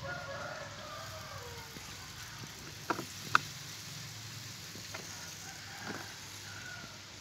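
A steady low mechanical hum, with two sharp clicks about three seconds in and a couple of fainter clicks later.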